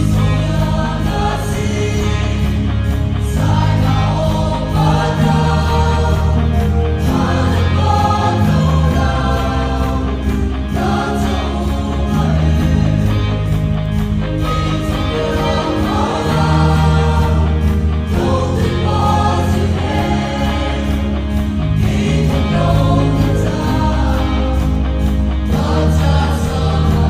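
Mixed choir of women's and men's voices singing a gospel song in harmony, with sustained low bass notes underneath that change every couple of seconds.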